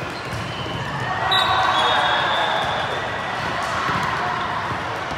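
Busy volleyball gym with several courts: volleyballs thud and bounce over a din of players' and spectators' voices. A referee's whistle sounds about a second in and holds for about a second and a half.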